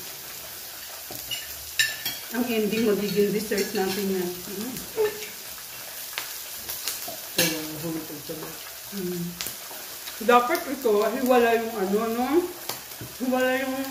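Pork belly sizzling on a tabletop electric grill, a steady hiss, with a few clinks of utensils and voices talking at intervals over it.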